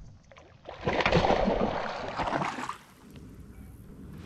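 Hooked largemouth bass thrashing and splashing at the water's surface beside a kayak for about two seconds as it is reeled in to be landed.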